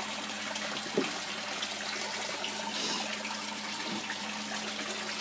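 Pumped pond water running steadily into a plastic barrel solids filter of an aquaponics system, with a steady low hum beneath and a light knock about a second in.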